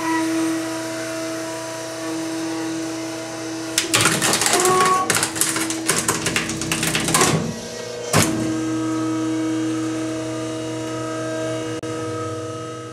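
Garbage truck compactor running with a steady mechanical hum; about four seconds in a dense flurry of cracking and crunching breaks out as a microwave and car stereo are crushed, stopping after about three seconds, followed by one more sharp crack a second later.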